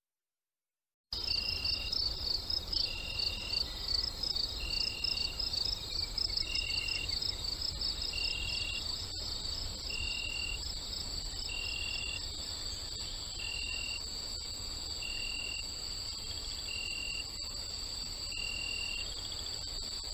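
Cricket and insect chorus, starting suddenly about a second in: fast pulsed high chirping, with a separate chirp repeating about every second and a half, over a faint low rumble.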